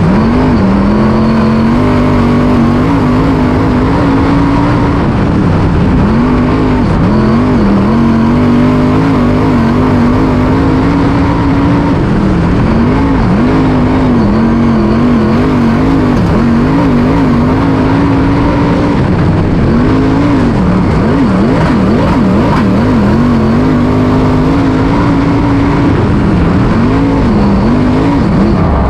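Dirt late model race car's V8 engine heard from inside the cockpit, running at moderate revs, its pitch dipping and rising again and again as the throttle is eased off and back on.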